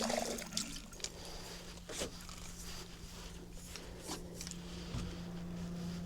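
Faint water sloshing with a few scattered clicks and taps, over a steady low hum.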